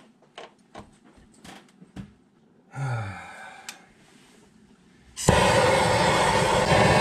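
Light metal clinks of tools being handled, then a short louder noise about three seconds in. From about five seconds in a handheld propane torch runs with a loud, steady hiss, its flame heating a rust-seized castle nut on the front axle hub.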